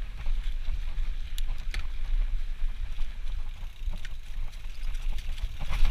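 Steady low rumble of wind buffeting a GoPro action camera's microphone, with a few scattered light clicks and rattles.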